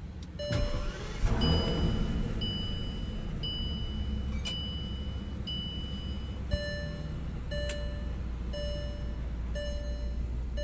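Bentley Flying Spur's dashboard warning chime repeating about once a second: first a short high two-note chime, then, about six and a half seconds in, a fuller chime with a lower note added at the same pace, over a low steady hum.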